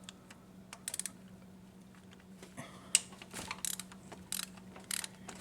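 Hand socket ratchet clicking in short bursts as bolts on the intake manifold are cracked loose, with one sharp click about three seconds in.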